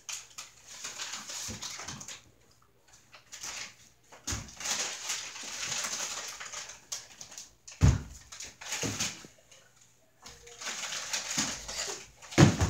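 Heavy thuds of a child's feet landing on a hardwood floor during gymnastics moves, the loudest about 8 s in and near the end, between stretches of rustling.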